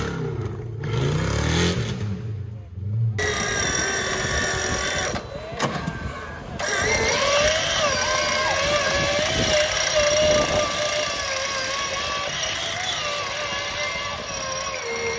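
Off-road vehicle engine revving for about three seconds, then a steady high-pitched whine that wavers slightly in pitch over the running engine: an electric winch on an Ultra4 buggy pulling in its line.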